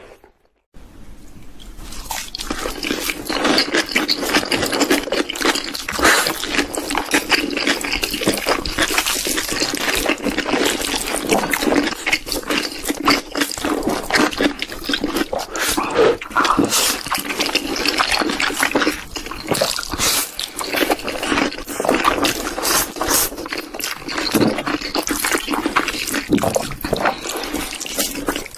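Close-miked wet eating sounds: a dense, continuous stream of mouth smacks, chewing and slurping of noodles and a soft cream-topped dessert, starting after a moment's silence.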